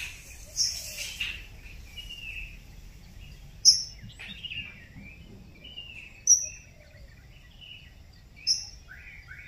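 Birds chirping, with a sharp high call repeating about every two and a half seconds among quicker lower chirps, over a faint low background noise.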